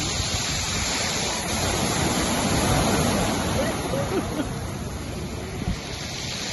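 Sea surf washing and churning in the shallows, a steady rush of water noise that swells a little midway, with faint distant voices of bathers.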